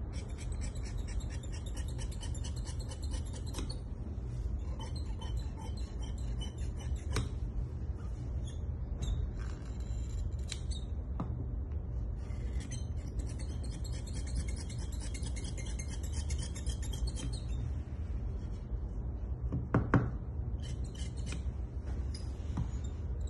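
Large tailor's shears cutting through heavy coat cloth, a run of crisp snipping and crunching strokes in several spells with short pauses, over a steady low hum. A single louder knock comes near the end.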